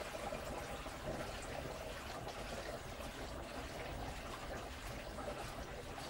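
Panasonic NA-FS160P3X top-load washing machine in its self-cleaning step: the tub and load turning in water, giving a steady churning, swishing water noise with a low rumble underneath.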